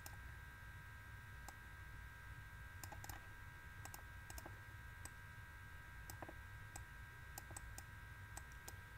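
Faint, irregular clicks of a computer mouse over a low steady electrical hum.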